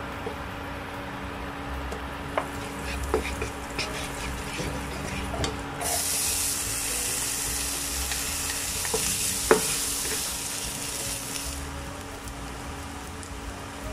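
Butter melting in a hot nonstick frying pan, with a wooden spatula knocking and scraping against the pan. About six seconds in, a loud sizzle starts suddenly as diced onion, garlic and ginger hit the hot butter, and it fades after about five seconds.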